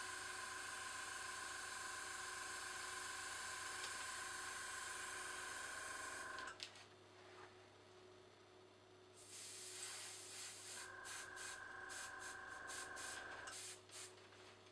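Small tankless airbrush compressor running, with a steady hiss from a dual-action airbrush spraying black acrylic paint. Both stop about six and a half seconds in. A short hiss comes around nine seconds, then the compressor starts again about eleven seconds in under a series of short spray bursts, and stops near the end.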